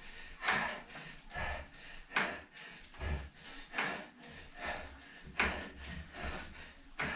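A man breathing hard and rhythmically while pulling resistance bands in alternating front-crawl strokes: a sharp, noisy breath a little more than once a second, in time with the arm pulls.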